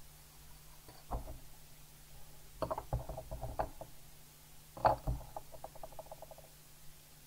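Knocks and clicks of small model-kit parts and packaging being handled and set down on a work mat. About five seconds in comes a loud click, then a short rapid rattle of small screws in their paper packet.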